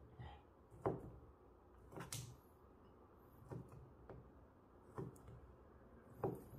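Kitchen knife chopping ham on a cutting board: about seven short knocks of the blade meeting the board, unevenly spaced roughly a second apart.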